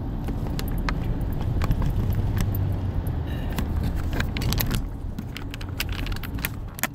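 Handling noise on a phone's microphone: a steady low rumble with many scattered light clicks and rattles as the phone is held and worked, the rumble easing off near the end.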